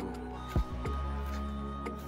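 Background music with held low notes and a few sharp percussive hits.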